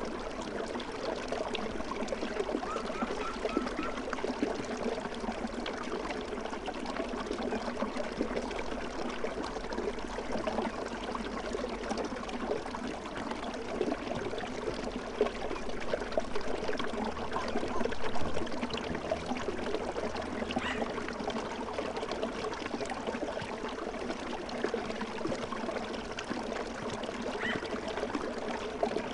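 Continuous babbling stream: water trickling and pouring over stones in a steady, even flow.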